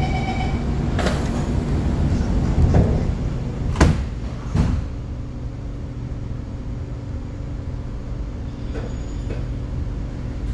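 Steady low rumble and hum inside an SMRT C751B metro train. Three sharp knocks come in the first five seconds, and the rumble eases a little after that.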